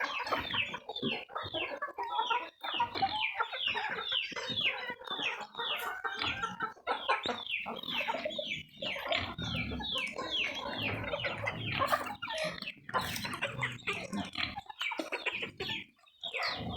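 Chickens calling: a dense, unbroken run of short calls, each falling in pitch, several a second.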